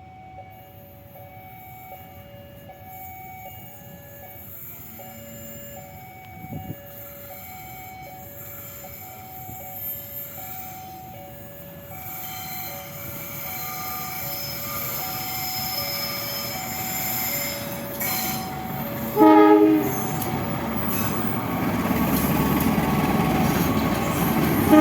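A two-tone warning alarm sounds in a steady alternating pattern while a train approaches, its rumble growing louder. About 19 seconds in, a locomotive gives a short, loud horn blast, and the train then passes close by.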